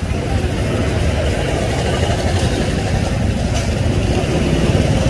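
Steady low engine rumble, running evenly.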